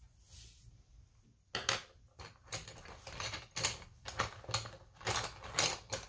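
Coloured pencils clicking and clattering against each other as a hand rummages through a zippered fabric pencil case, a quick irregular run of sharp clicks from about a second and a half in. Before that, a brief scratch of pencil on paper.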